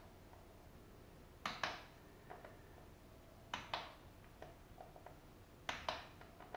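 Click-type torque wrench breaking over on the BMW F850GS fork pinch bolts: three sharp double clicks about two seconds apart, each marking a bolt reaching its set torque of 19 Nm.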